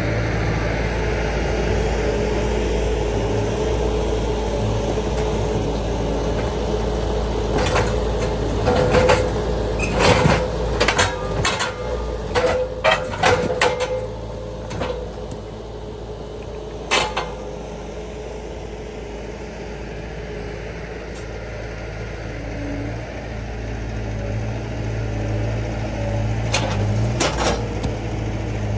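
Skid steer engine running steadily while working a grapple attachment, with a run of sharp clanks and knocks in the middle and two more near the end from the grapple at work.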